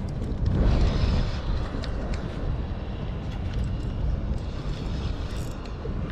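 Steady low rumbling background noise, swelling briefly about a second in, with a few faint clicks.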